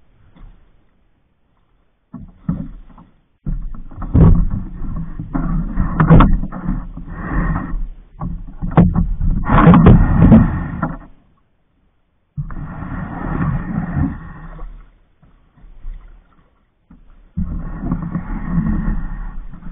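Canoe being hauled by hand through a shallow, muddy channel, its hull scraping and knocking over the bottom and snags with water sloshing. The noise comes in long rough stretches with short pauses between pulls.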